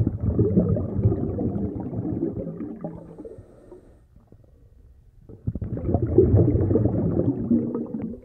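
Bubbling, gurgling water sound effect, a low crackling rumble in two swells: one at the start fading out by about three and a half seconds, and a second rising about five seconds in.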